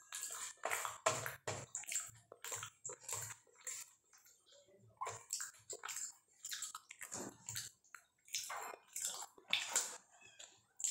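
Close-up wet eating sounds of rice mixed with dal eaten by hand: a quick, irregular run of short squelching chews and mouth sounds, with a quieter stretch about four seconds in.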